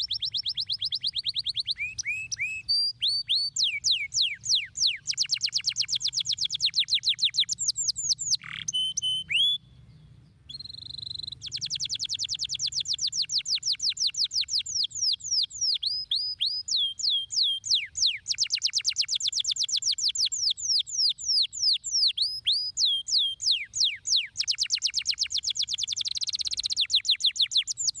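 Canary singing a long song of fast trills, rapidly repeated falling notes, with a brief break about ten seconds in.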